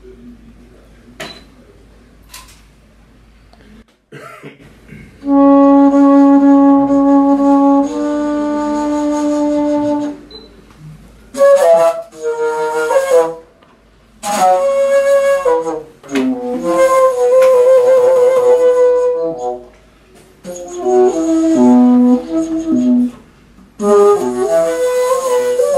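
Solo low flute with a curved head joint. After a few faint clicks, it plays two long held notes, then short melodic phrases broken by brief pauses, with one wavering note near the middle.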